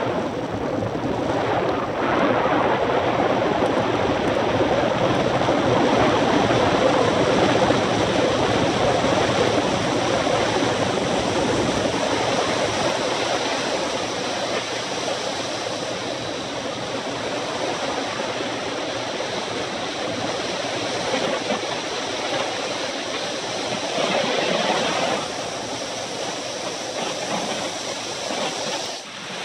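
Wind rushing over the microphone of a bicycle-mounted camera riding fast on asphalt, mixed with tyre noise; a steady rush, louder in the first half and easing off near the end.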